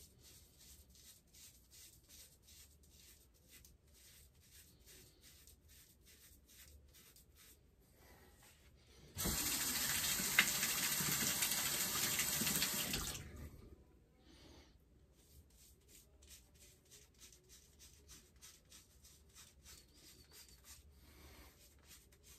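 Quick scraping strokes of a hand razor through a thick, month-old beard, several a second. About nine seconds in, a tap runs into the sink for about four seconds, then the scraping strokes start again.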